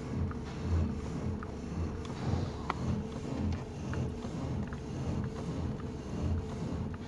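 Toyota Rush engine idling, a steady low rumble heard in the driver's footwell, with a few faint light ticks while the steering is turned. No creaking comes from the steering column bushing, which has just been sanded and greased to cure its creak.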